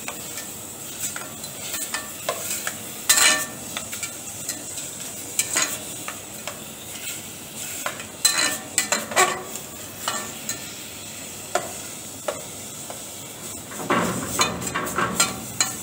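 Metal slotted spatula stirring and scraping chopped tomato concassé in a stainless-steel saucepan, with irregular clicks and scrapes of metal against the pan, over a steady sizzle as the sauce cooks down on slow fire to evaporate its moisture.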